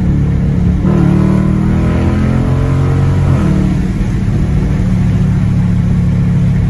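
2020 Dodge Challenger R/T's 5.7-litre HEMI V8 with a mid-muffler delete, accelerating. The exhaust note climbs in pitch for about two seconds, falls away about three seconds in, and settles into a steady low drone.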